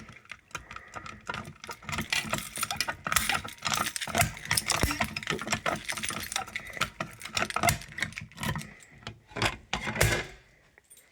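Keys jangling and small plastic and metal parts clicking and rattling as they are handled, an irregular run of clicks that dies away about ten and a half seconds in.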